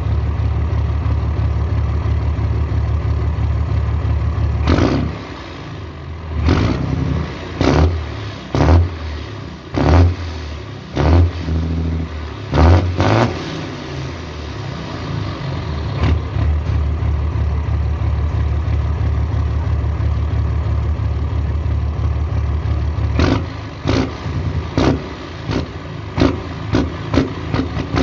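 Diesel truck engine with a straight exhaust pipe, idling steadily, then blipped hard about nine times in quick short revs. It settles back to a steady idle, and near the end another faster string of short revs follows.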